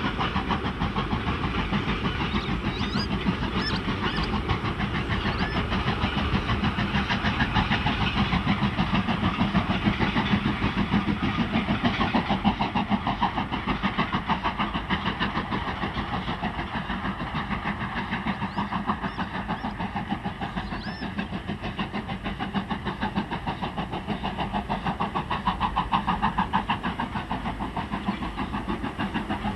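A train running, with a steady mechanical clatter and hiss. A few faint high squeals come in about three seconds in and again around twenty seconds.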